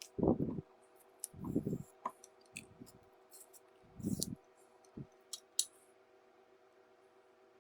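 Close handling noise from hand-sewing a Velcro strap: irregular dull bumps mixed with sharp clicks and ticks as the needle, thread and strap are worked.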